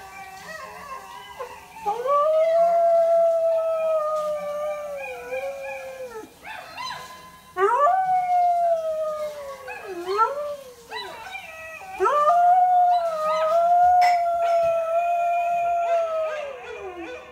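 Samoyed howling: three long, drawn-out howls, each rising at the start, holding a steady pitch and sliding down at the end, with a shorter wavering call between the second and third.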